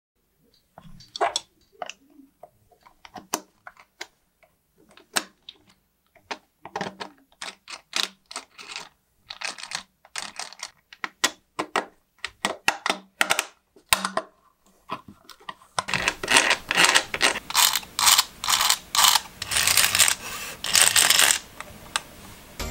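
3D-printed PLA gearbox parts being handled and fitted together by hand: scattered plastic clicks and knocks. For the last several seconds they give way to a denser, louder run of clattering.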